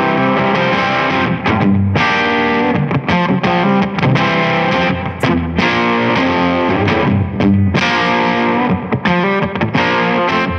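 Playback of an overdriven electric guitar part recorded with a Soyuz Bomblet FET microphone, its top end boosted by about 7 dB around 10 kHz on an EQ. The listeners find that the boosted highs stay usable and do not turn brittle.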